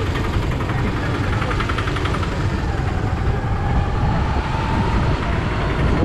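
Busy street noise: a steady low rumble of motorbike and traffic engines close by, with a faint tone rising slowly in the middle.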